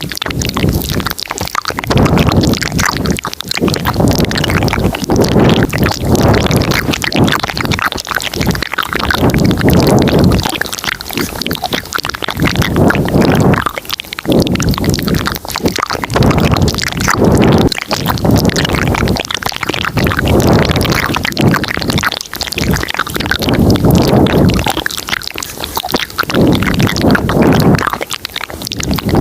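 Layered ASMR mouth sounds close to the microphone: a dense, continuous stream of wet clicks and smacks, swelling louder and softer every couple of seconds.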